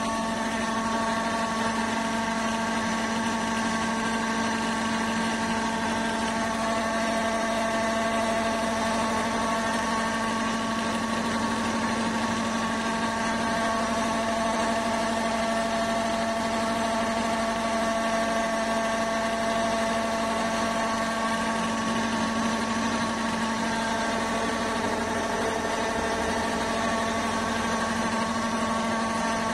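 A 3 kW, 220 V electric pellet mill (Granulator 120) running under load, pressing compound feed with grass meal through a 2.5 mm die. It makes a steady hum with several constant higher whining tones.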